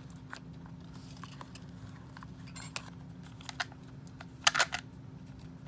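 Small plastic clicks and taps from miniature toy bookshelves being handled, with two sharper knocks about four and a half seconds in, over a steady low hum.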